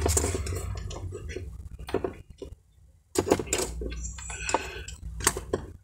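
Small metal parts clinking and rattling as an alligator clip is set on an alternator voltage regulator and a spool of solder is picked up, with scattered sharp clicks over a low hum. Everything drops out briefly about two and a half seconds in.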